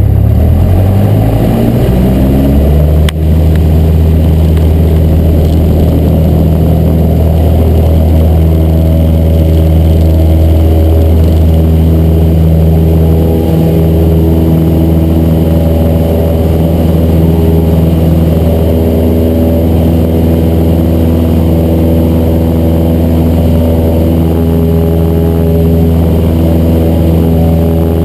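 Cessna 172's engine and propeller rising in pitch over the first few seconds as power comes up, then running steady at high power. A short click about three seconds in.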